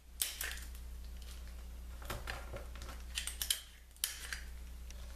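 Fingers handling a small strip of clear adhesive tape, with light clicks and short crinkly rustles at irregular intervals. A faint steady low hum runs underneath.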